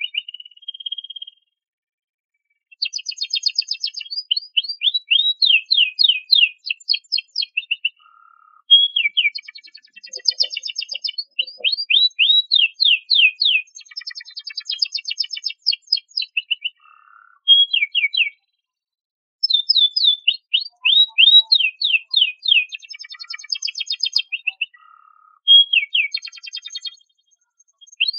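Domestic canary singing: long phrases of fast repeated notes and rattling trills, broken by short pauses of about a second between phrases.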